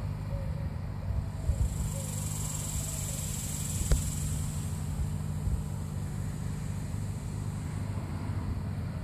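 Outdoor ambience: a steady low rumble, with a high, even insect buzz that swells from about a second and a half in and fades by about halfway, a single sharp click about four seconds in, and a couple of soft bumps early on.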